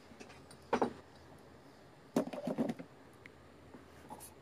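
A few brief handling sounds: a short knock about a second in, then a short cluster of knocks and rustles just past two seconds, and a faint click near the end, over quiet room tone.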